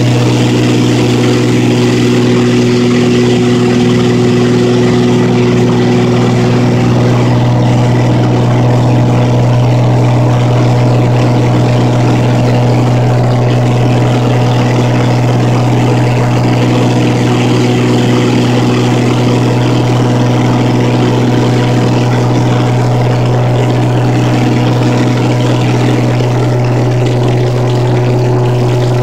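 Twin piston-engine propeller airplane running steadily in flight, a loud, even drone of engines and propellers with a strong low hum.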